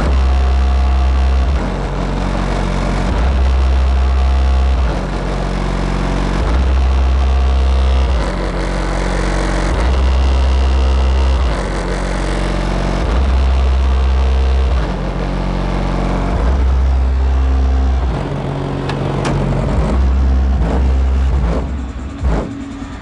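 Bass-heavy music played through a Ural AS-D12A Dual Hurricane active subwoofer (two 12-inch drivers in a box), heard from outside behind the car: long, deep bass notes of about a second and a half each, repeating, under the rest of the track.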